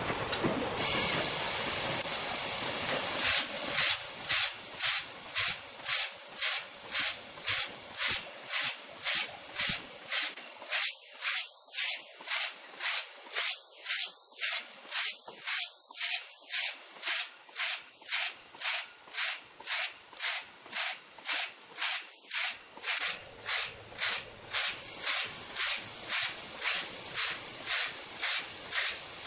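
Machinery hissing in a steady rhythm, about two pulses a second.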